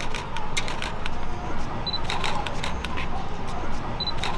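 Camera shutter clicking in quick runs, several shots a second at an uneven pace. A short high beep sounds about two seconds in and again near the end.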